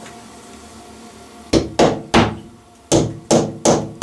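Sharp repeated knocks as a wall plug is tapped into a freshly drilled hole in the ceiling, the strikes given by hand with a screwdriver. They begin about a second and a half in: three quick knocks, a short pause, then four more.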